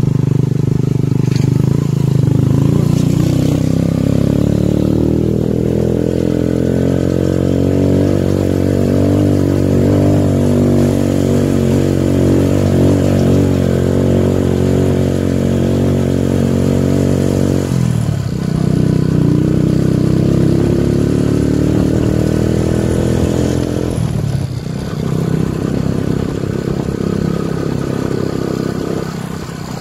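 Motorcycle engine running steadily under way on a ride up a dirt road. Its note breaks off and drops briefly about 18 seconds in and again about 24 seconds in, then picks up again.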